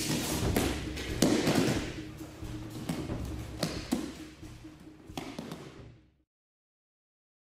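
Thuds and slaps of aikido practitioners being thrown and breakfalling onto tatami mats, several separate impacts over a noisy dojo background, fading out about six seconds in.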